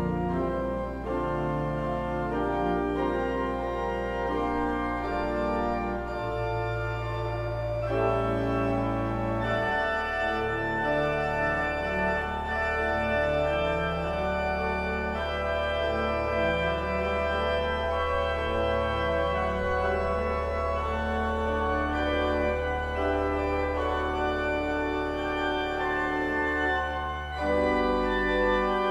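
Church organ playing a slow piece of sustained chords over long-held bass notes that change only every few seconds.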